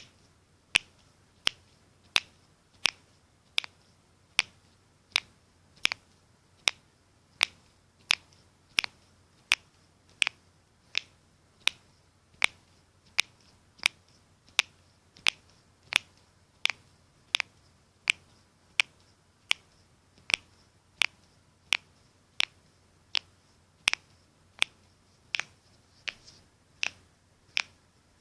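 Knuckles cracking: single sharp clicks that repeat at an even pace, about three every two seconds, with quiet between them.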